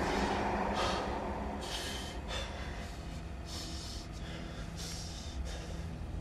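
A man breathing heavily in ragged, irregular gasps, over a low steady hum.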